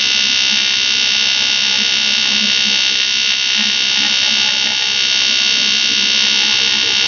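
Steady, high-pitched buzz of an AC TIG welding arc from an Eastwood TIG 200 AC/DC, laying a bead on 1-inch-thick 6061 aluminum.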